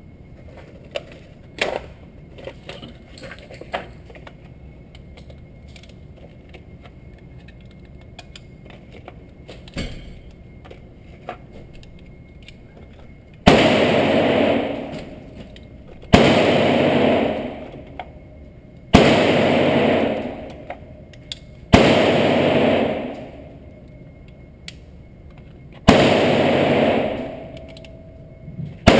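Glock 30 .45 ACP pistol firing 230-grain hardball: five single shots, two to four seconds apart, starting about halfway in, each loud and followed by a long echo off the concrete walls of an indoor range. Before the shots, scattered small clicks and knocks of handling.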